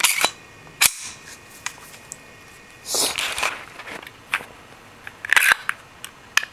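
A Glock 20C pistol being cleared for a safety check: a series of sharp metallic clicks and clacks as the slide and magazine are worked by hand, with a longer rattling clatter about three seconds in.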